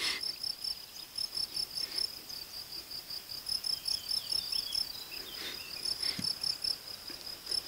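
Crickets chirping steadily: a continuous run of short, high-pitched pulses repeating several times a second.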